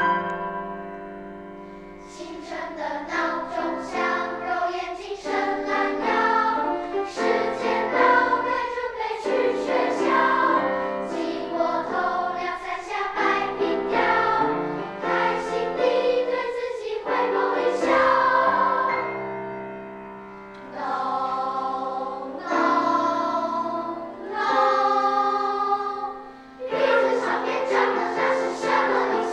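Children's equal-voice school choir singing in sustained phrases, with short breaks between phrases about 20 and 26 seconds in.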